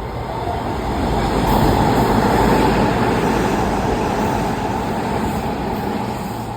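Hanshin–Sanyo through limited express trains running through the station at speed and passing each other: a rushing rumble of wheels and motors that swells to its loudest about two and a half seconds in, then slowly fades.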